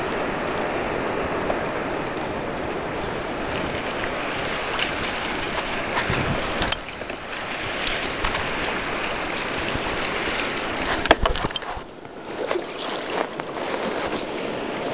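Seawater rushing and sloshing around a plastic sit-on-top kayak, a steady wash with scattered knocks and splashes; the loudest knock comes about eleven seconds in.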